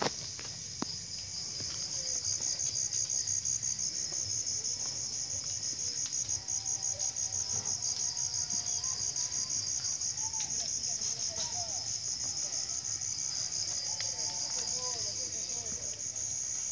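A chorus of night insects: a steady, high, fast-pulsing trill. Fainter wavering lower calls join about six seconds in.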